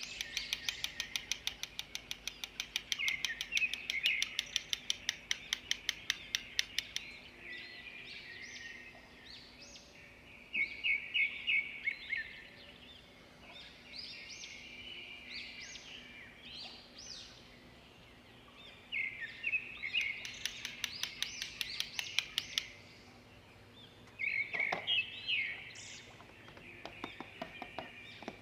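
Birds chirping in short repeated phrases, with two longer stretches of rapid trilling.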